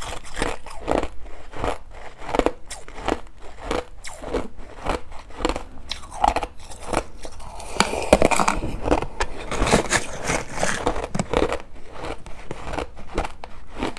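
Crushed ice being bitten and chewed close to the microphone: a steady run of sharp crunches, busiest and loudest a little past the middle.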